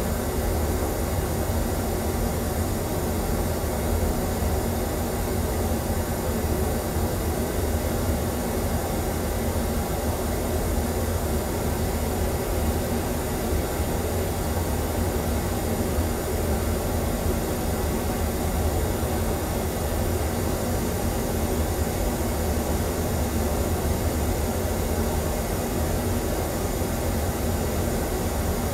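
Pink noise played through an auditorium's sound system as a test signal for measuring and equalising the room: a steady, unchanging hiss with a heavy bass rumble.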